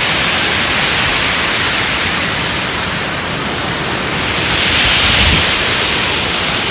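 Rushing water of a waterfall close by, a loud steady hiss that swells a little about five seconds in.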